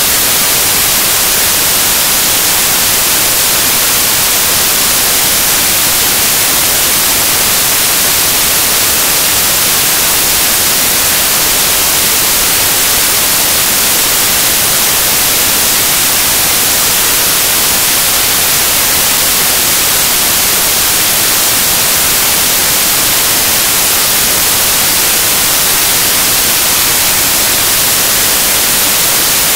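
Loud, steady static hiss, an even noise brightest in the treble, unchanging throughout.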